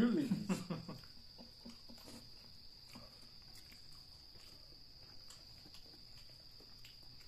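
Steady high chirring of crickets, with a short voice-like sound in the first second and faint scattered clicks from eating by hand off a plate.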